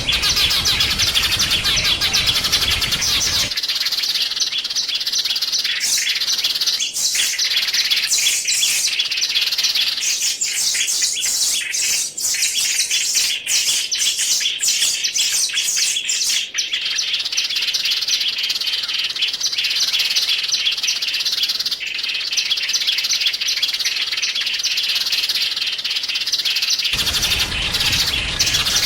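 Small songbirds chirping and twittering rapidly and without pause, a dense high-pitched chorus. A lower background hiss drops away a few seconds in and returns near the end.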